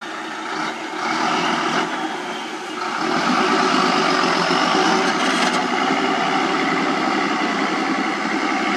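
Loaded SHACMAN F3000 dump truck's 10-litre Weichai six-cylinder diesel working as the truck pulls away with its load of soil, getting louder about three seconds in and then running steadily.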